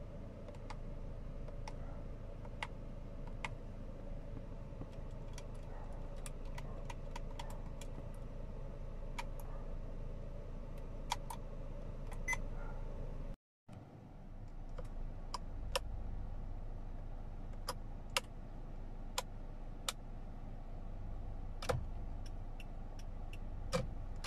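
Plastic steering-wheel control buttons in a 2010 Kia Forte SX clicking as they are pressed one after another, a dozen or more sharp clicks, over a steady low hum in the car cabin. Near the end the turn-signal/headlight stalk switch clicks as well.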